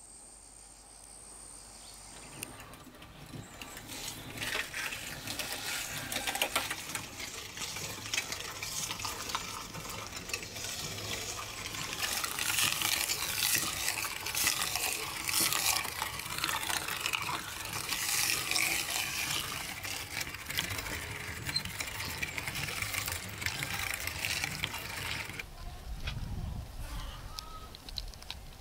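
Hand-cranked metal meat grinder turning and forcing meat through its plate: a steady wet squelching and crackling with many small metallic clicks. It starts a few seconds in and stops near the end.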